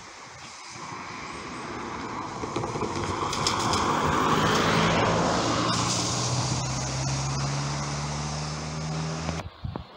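A car drives past on wet asphalt, its tyre hiss swelling to a peak about four to five seconds in. A steady low engine hum carries on after it until the sound cuts off suddenly near the end.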